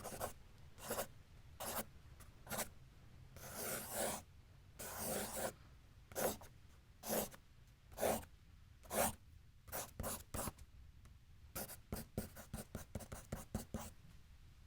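Pencil writing and drawing on paper. Single scratchy strokes about once a second, two longer scribbles around four and five seconds in, then a quick run of short strokes toward the end.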